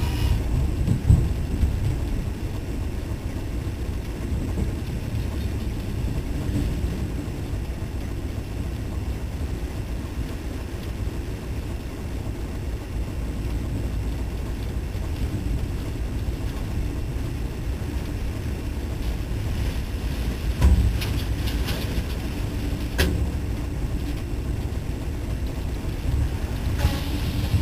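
Steady low rumble of a freight train in tornado-force wind, with wind buffeting the microphone and a few sharp knocks in the last third.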